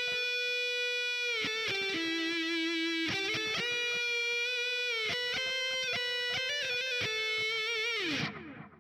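Jackson Dinky JS22 electric guitar played through a high-gain distorted tone with a little reverb and delay, picking a short melodic lead line of held notes. Near the end the pitch slides down and the sound dies away.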